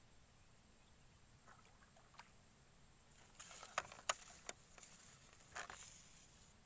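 Climbing perch (betok) being struck and lifted out of shallow swamp water on a pole rod. About three seconds in there is a short flurry of splashing with several sharp clicks, then another brief splash near the end.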